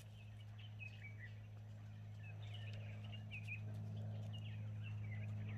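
Faint birds chirping and twittering, over a steady low hum.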